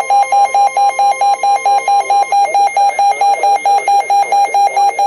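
Broadcast emergency alert tone: a loud, buzzy electronic warble flipping rapidly between two pitches, about four to five times a second. A steady high tone underneath stops about two seconds in.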